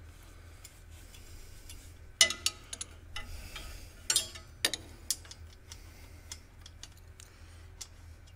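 Metallic clinks and ticks of a steel box-end wrench and bolt against a tractor's hydraulic manifold, as the wrench is brought in and fitted on the bolt. A few sharp, louder clinks come about two and four seconds in, with light ticking between, over a faint low hum.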